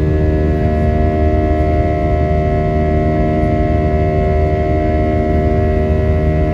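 Airbus A320-200's turbofan engines at climb power, heard inside the cabin: a steady low rumble with several steady droning tones over it.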